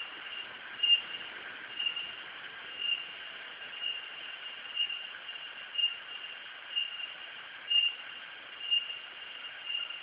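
Insects calling in a steady high drone that swells about once a second, over the even rush of a rocky river.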